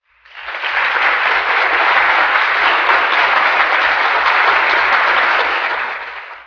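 Crowd applause, many hands clapping in a dense steady patter that fades in over the first second and fades out near the end.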